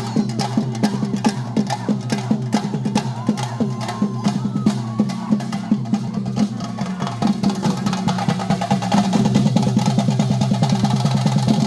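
Theyyam percussion: chenda drums beaten in fast, dense strokes over a steady low hum. The drumming gets louder and busier about nine seconds in.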